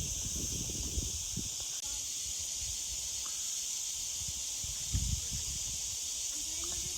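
A steady, high-pitched chorus of cicadas buzzing without a break. A few low thumps of wind or handling on the microphone come in the first second or so and again about five seconds in.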